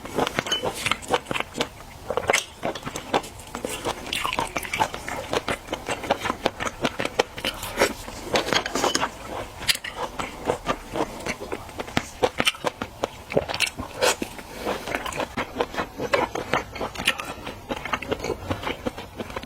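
A person eating seafood, biting and chewing with a steady, irregular run of sharp crunches and clicks.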